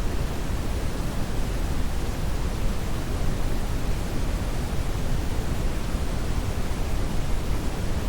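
Loud, steady static hiss with no tone or rhythm, the sound of a broadcast signal cut off mid-sentence into dead air.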